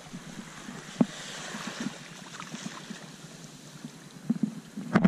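Small waves lapping at the edge of a calm sea, with light wind and a few faint clicks, one sharper about a second in.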